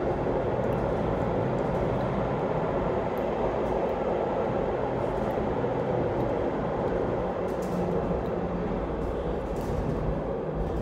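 Funicular car running steadily along its rails, a constant even running noise heard from inside the cabin.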